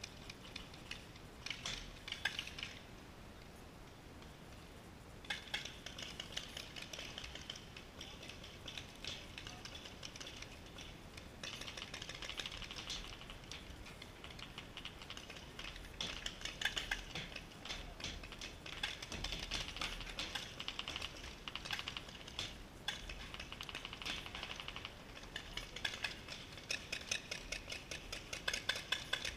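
Paintball markers firing in rapid strings of shots, a fast clatter of pops that comes and goes in bursts, with the odd louder crack.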